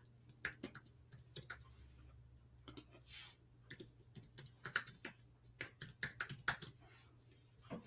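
Typing on a computer keyboard: faint, scattered, irregular keystrokes over a low hum.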